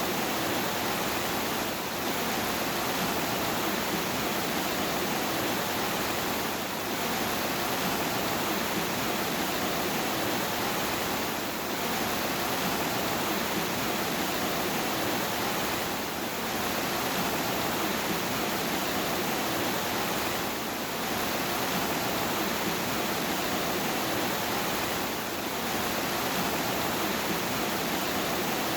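Rainstorm: a steady, dense hiss of rain, dipping slightly in level for a moment every four to five seconds.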